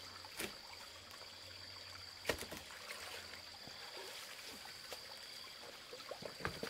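Shallow muddy stream water trickling and sloshing around a person wading in it while handling a wooden log, with a few sharp knocks, the loudest about two seconds in and a small cluster near the end.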